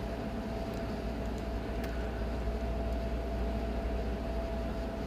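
Steady low hum and hiss with a faint steady tone, over which a lock pick makes a few faint light clicks against the pins inside a cable bike lock's cylinder, about three in the first two seconds.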